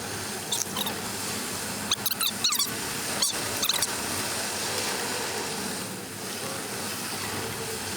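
Steady wind noise with a few short, high squeaks about half a second, two and three and a half seconds in.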